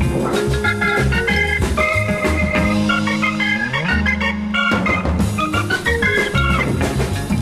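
Instrumental 1960s jazz with a Hammond organ lead over bass and drums, including a rising bass slide a little before the middle.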